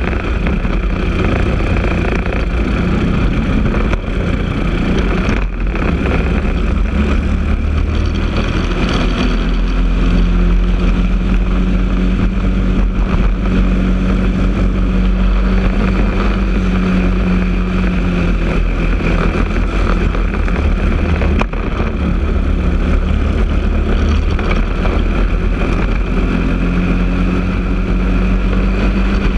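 Briggs & Stratton LO206 single-cylinder four-stroke kart engine running hard, heard onboard the kart. Its pitch climbs as it pulls down the straights and drops sharply twice when the driver lifts off, about five seconds in and again about twenty-one seconds in.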